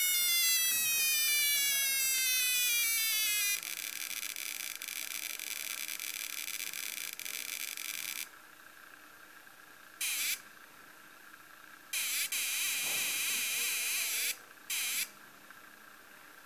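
Electronic sound chip of a 1980s Turbo Blaster sound-effect keychain playing its bomb effect: a high falling whistle that ends about three and a half seconds in, then a harsh buzzy electronic explosion noise lasting about four and a half seconds. After a pause come three more bursts of the same buzzy noise, one short, one about two seconds long and another short one.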